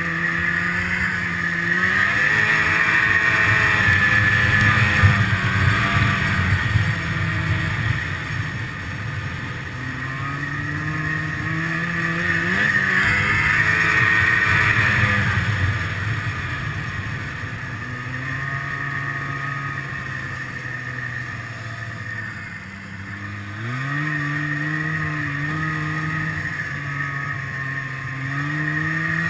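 Snowmobile engine running under way, its pitch rising and falling with the throttle, with a sharp climb about three-quarters through after a brief easing off.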